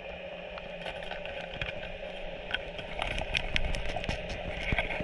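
Underwater sound through a diving camera: a steady engine-like hum with a few fixed tones, with scattered sharp clicks and crackles that grow busier toward the end.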